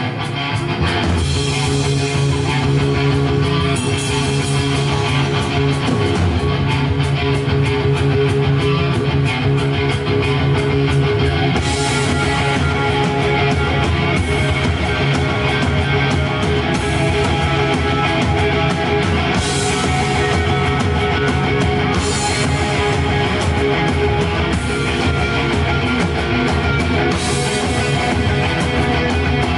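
Rock band playing live: electric guitars and drums at full volume, the drums coming in about a second in.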